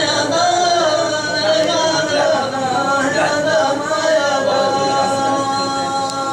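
A man singing a Hadrami dan in long, winding melodic lines, settling into a held note in the second half.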